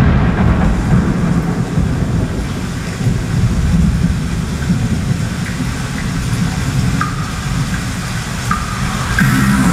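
Loud, steady rumbling noise, heaviest in the low end, with a few faint short chirps in its last few seconds.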